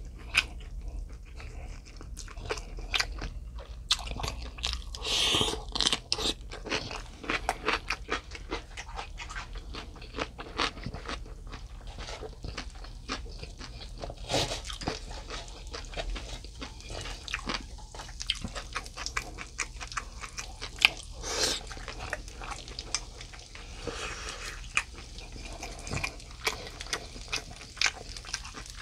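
A person eating close to the microphone: crunchy bites and chewing of cucumber kimchi, a dense run of short, sharp crunches with louder bursts about five, fourteen and twenty-one seconds in.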